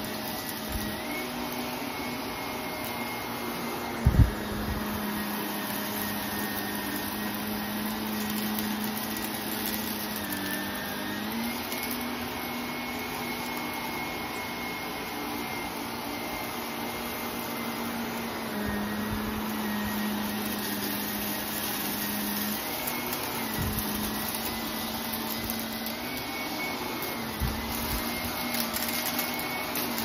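Upright vacuum cleaner running steadily over carpet, its motor hum dipping and rising slightly in pitch now and then. A sharp knock about four seconds in, and a few lighter knocks near the end.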